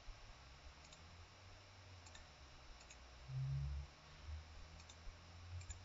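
Faint computer mouse clicks, a few spread out, with a short low hum about three seconds in.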